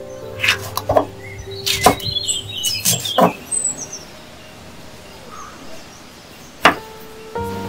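Kitchen knife and utensils knocking on a wooden chopping board and clay bowl. There are several sharp clicks and knocks over the first three seconds, then a quiet stretch, then one sharp knife knock on the board near the end.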